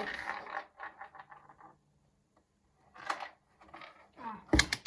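Small plastic LEGO parts being handled and shifted about, scratching and rattling, with a few sharp clicks near the end.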